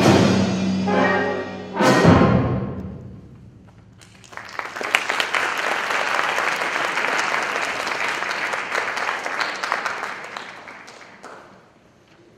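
High school concert band holding its final chord and cutting it off with one last loud stroke about two seconds in, which rings away. Audience applause follows from about four seconds in and dies away near the end.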